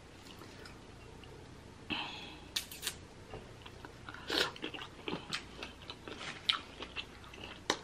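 Close-miked biting and chewing of a boiled shrimp dipped in seafood boil sauce, with wet mouth smacks. It is faint at first and becomes a run of short sharp smacks in the second half.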